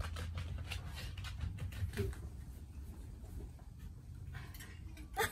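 Faint scratchy rustling and light ticks in a quiet room, thickest in the first couple of seconds and sparser after, over a low steady hum.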